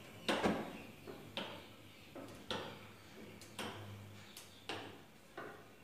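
Gas stove burner knobs turned off one after another, a sharp click about once a second, six in all.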